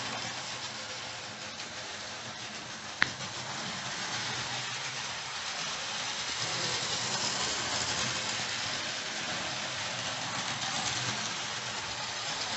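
Hornby OO gauge GWR tank locomotive running round a small oval of sectional track with its four-wheel coaches: a steady whirr of the motor and wheels on the rails, with one sharp click about three seconds in.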